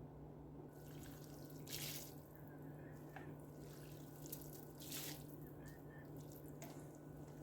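A few faint drips of water, about five scattered through, over a low steady hum.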